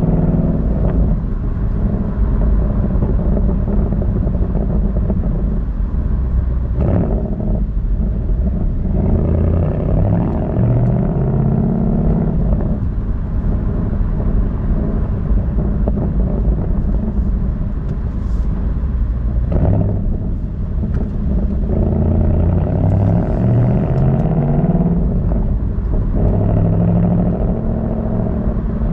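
Ford Mustang GT's 5.0-litre V8 exhaust, heard from outside the car while it is driven: a steady low rumble whose pitch climbs several times as the engine revs up under acceleration, then drops back.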